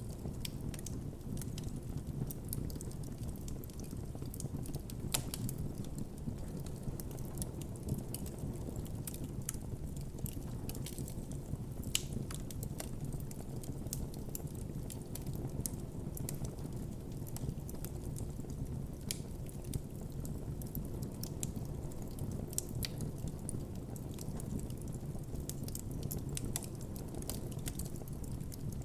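Wood campfire burning with a steady low rumble of flames and irregular crackles and pops, a few sharper pops standing out.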